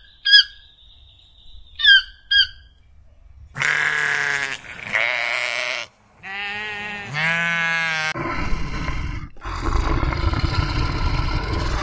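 A keel-billed toucan giving short sharp calls in two pairs, then sheep bleating four times, then a low growl from a grizzly bear that carries on from about eight seconds in.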